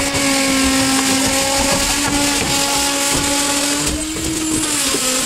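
A motor running steadily with an even hum, its pitch dipping slightly about four seconds in, typical of machinery working on a concrete slab pour.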